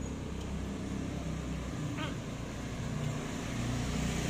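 Motor vehicle engines on the street give a low, steady hum, with a single short click about two seconds in.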